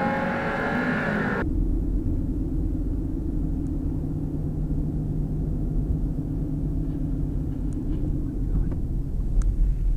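A car's engine and road noise heard from inside the cabin: rising in pitch as the car accelerates, then cutting abruptly about a second and a half in to a steady low rumble while cruising.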